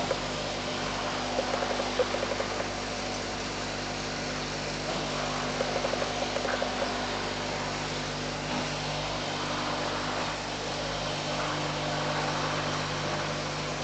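Steady machine hum with a low drone, broken by short spells of light, fast rattling about a second in and again around six seconds in.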